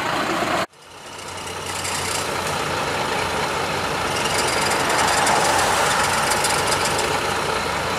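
Old Class C motorhome's engine idling steadily with a low hum, just started after sitting unstarted for many years. The sound cuts out briefly under a second in and fades back up.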